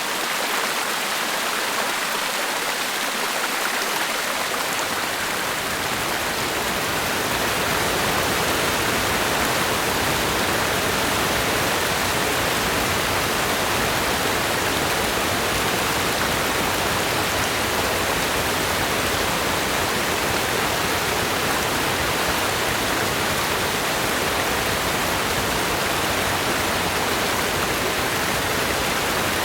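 Rainforest creek water rushing and tumbling over rocks, a steady even noise. From about five seconds in it grows a little louder and deeper.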